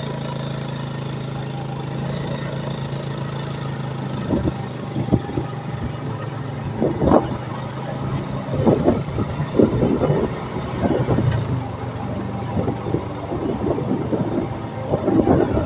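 Small motorbike engine running steadily while riding along a paved road. From about four seconds in, irregular gusts of wind buffet the microphone.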